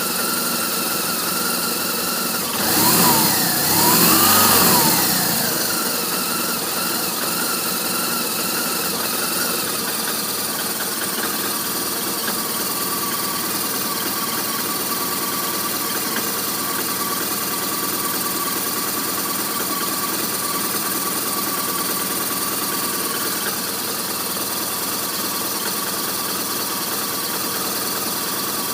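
BMW R1200RT's boxer-twin engine idling. The throttle is blipped twice about three seconds in, the revs rising and falling, then it settles back to a steady idle. The bike has a rough-idle problem.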